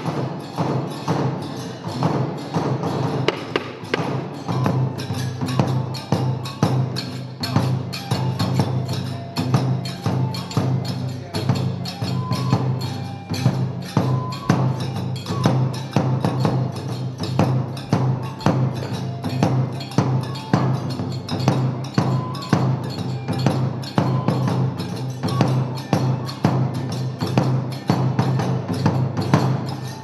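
Kagura accompaniment for the gongen-mai lion-head dance: drum and hand cymbals keep a fast, steady beat under short held flute notes.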